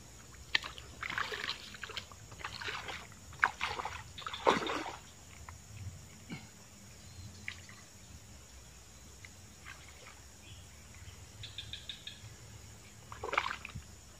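Shallow muddy water splashing and sloshing as a person wades through it and handles a rod at the water's edge: a run of irregular splashes in the first five seconds, calmer for a while, then another splash near the end.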